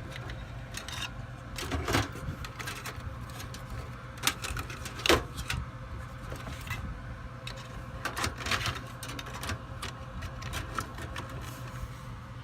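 Irregular clicks and knocks of a graphics card and computer case being handled as the card is worked past cables and pushed into the motherboard slot, with one sharp knock about five seconds in. A low steady hum runs underneath.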